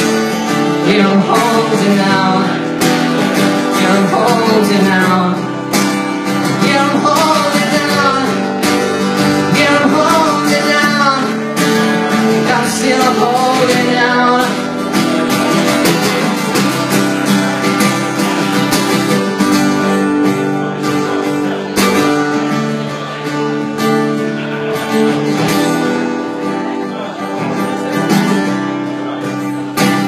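Acoustic guitar strummed live, with a man's singing voice over it for roughly the first half, then the guitar carrying on alone.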